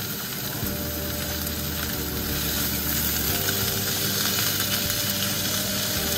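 Steaks searing in a hot nonstick frying pan: a steady sizzle of meat frying in oil.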